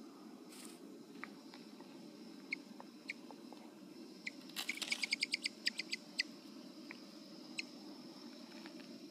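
Mexican speckled bobwhite quail giving sharp, high-pitched alarm chirps: a few single notes, then a fast run of about a dozen a little past halfway, and one more near the end. This is her frightened reaction to a stick she is afraid of.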